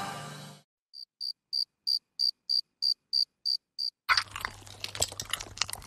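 A cricket chirping: about ten short, evenly spaced high chirps, roughly three a second, in an otherwise silent gap after music fades out. Near the end a busier background of small clicks and clatter over a low hum starts.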